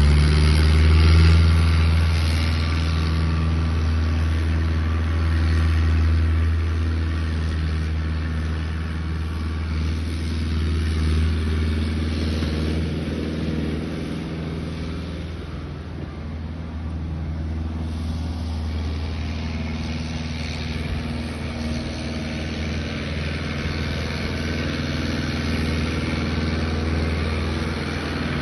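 Ferrari Cromo K60 RS compact tractor's engine running steadily as it pulls a soil-levelling implement over bare ground. The engine is loudest in the first dozen seconds, grows fainter past the middle, then comes up a little again near the end.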